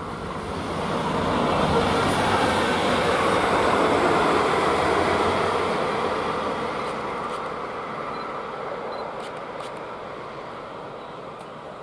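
Yellow DB track-measurement train, pushed by a Class 111 electric locomotive, passing by: the rumble of wheels on rails swells to a peak a couple of seconds in, then fades slowly as the train moves away.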